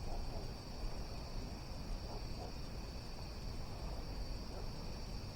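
Steady outdoor insect chorus: an unbroken high-pitched buzz, with a low rumble underneath.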